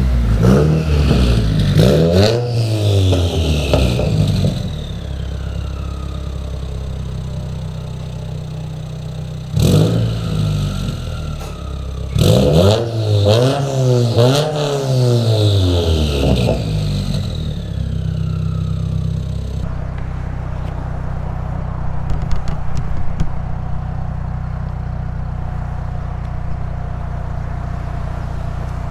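Turbocharged FA20 flat-four of a 2015+ Subaru WRX, breathing through a catless J-pipe and a Greddy RS-Race 80 mm catback exhaust, revved up and back down several times in the first few seconds and again from about ten to seventeen seconds in, then settling to a steady idle.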